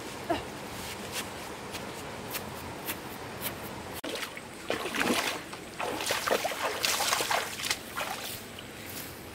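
A stream flowing steadily, then a person's bare feet splashing and sloshing through shallow water in a run of irregular steps through the second half, fading as they step out near the end.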